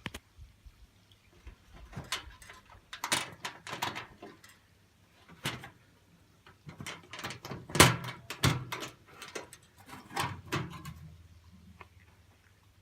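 Irregular knocks and clatters of things being handled, in uneven bunches, the loudest about eight seconds in.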